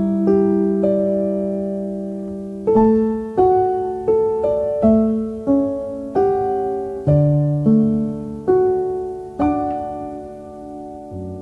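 Background music: a piano playing a slow, gentle melody, single notes struck and left to fade over a long held low note.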